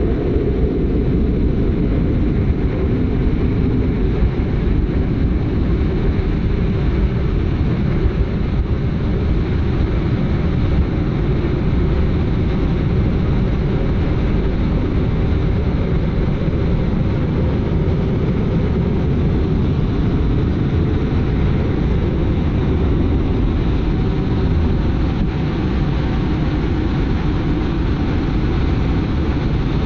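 Jet engines of a Blue Angels F/A-18 heard from inside the cockpit during the takeoff roll and lift-off: a steady, deep rumble with a hiss above it, holding an even level throughout.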